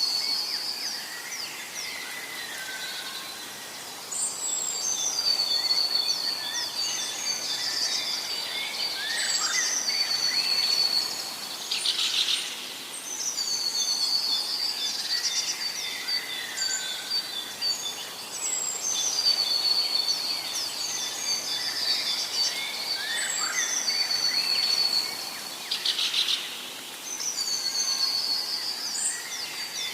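Captive birds calling and chirping, with a high, chattering phrase repeated every few seconds. Two short rustling bursts come partway through.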